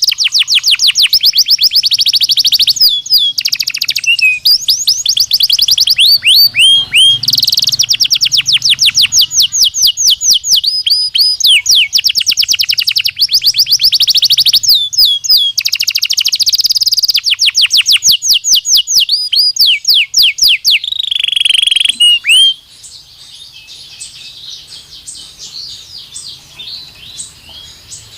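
Belgian canary singing: long, fast trills of rapidly repeated sweeping notes, switching from one trill to the next in changing phrases. About 22 seconds in, the loud song stops abruptly and a much fainter, softer warbling carries on.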